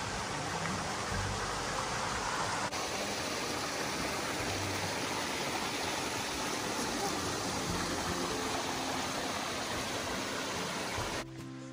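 Steady rush of flowing water from a mountain stream, cutting off abruptly near the end.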